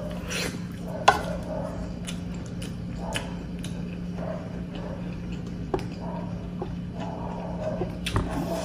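Close-up eating sounds: chewing a mouthful of stir-fried squid, with a few sharp clicks of a wooden spoon, the loudest about a second in. A steady low hum lies underneath.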